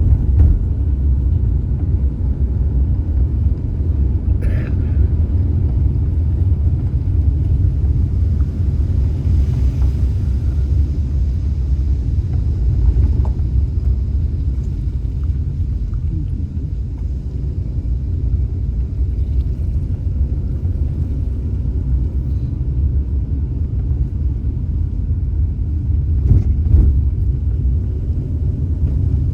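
Car driving: a steady low rumble of engine and tyres on the road, with a brief knock twice, once a few seconds in and once near the end.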